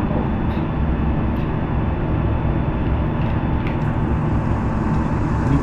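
Steady low rumble and mechanical hum of room background noise, with a few faint light clicks.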